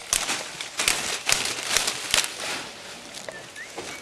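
Leafy yerba mate branches rustling and twigs snapping as they are cut and handled: a dense crackle of leaves with many sharp clicks, which thins out a little after halfway.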